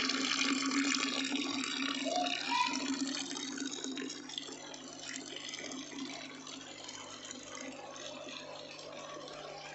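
Water pouring from a pipe into the bucket reservoir of a homemade hydroponic system, splashing and bubbling with aeration; it is louder in the first few seconds and fainter after that.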